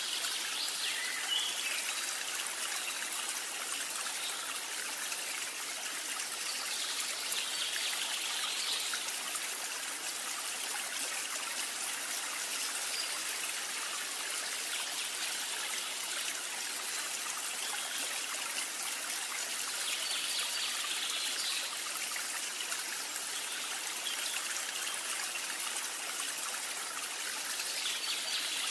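Potato chunks deep-frying in hot oil in a wok, a steady sizzle.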